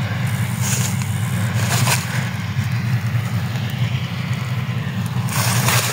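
Deutz AX 4.120 tractor's diesel engine idling with a steady low rumble. A short rush of noise comes near the end.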